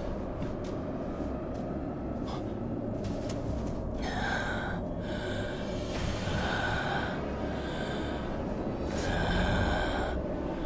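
A character's short, strained breaths, about five in a row starting some four seconds in, over a steady low rumble.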